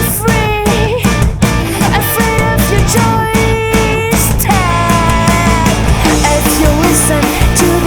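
Rock band playing a passage without lyrics: drums, bass guitar and electric guitar, with a lead line whose notes bend in pitch.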